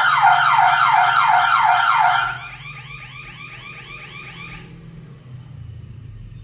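Electronic alarm siren of a wired intrusion alarm kit going off, sounding a loud sweeping tone that repeats about three to four times a second. About two seconds in it drops much quieter, and it stops a couple of seconds later, leaving a low hum.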